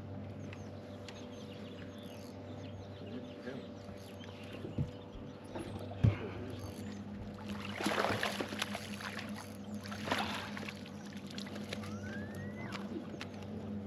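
Steady low hum of a fishing boat's motor, with two sharp knocks about halfway through and bursts of splashy noise near the end.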